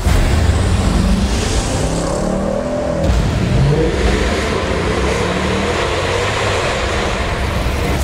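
Mercedes-Benz car engine accelerating hard, its note rising in pitch several times over a loud exhaust roar. It cuts in abruptly.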